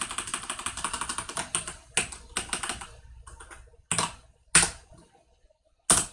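Typing on a computer keyboard: a fast run of key clicks for about two seconds, thinning into short bursts, then a few single, louder key presses spaced out near the end.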